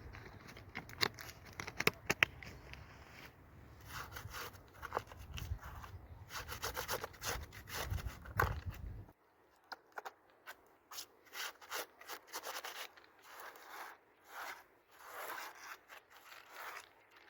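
A long run of short, irregular rubbing and scraping strokes. About nine seconds in, a low background rumble stops abruptly and the strokes continue over a quieter background.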